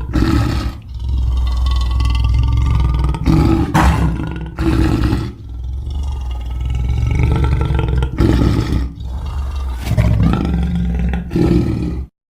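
Custom-made monster roar sound effects for Squidasaurus Rex: a run of deep, loud roars and growls, each lasting from under a second to a couple of seconds, with brief breaks between them. The sound cuts off abruptly near the end.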